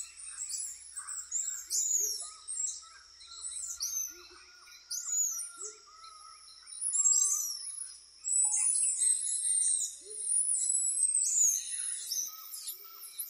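Rainforest animal chorus: many high, arching chirps and whistles overlapping throughout, a steady pulsing trill beneath them, and a short low hooting call repeated every second or two.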